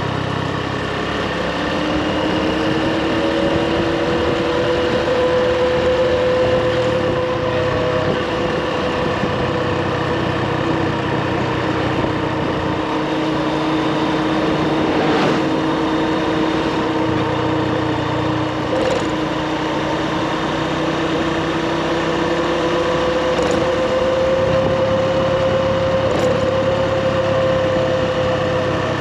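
Motorbike engine running steadily while riding, its pitch drifting slowly up and down over an even rushing noise, with a faint click about halfway through.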